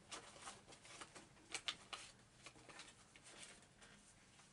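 Near silence with faint rustling and a few light clicks of small art supplies being handled and rummaged through, the sharpest clicks about one and a half seconds in.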